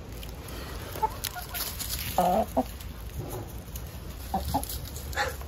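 Hens clucking: several short clucks, the loudest a little over two seconds in.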